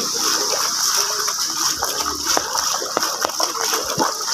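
Floodwater rushing steadily across a road, with scattered splashes from people wading in it and faint voices in the background.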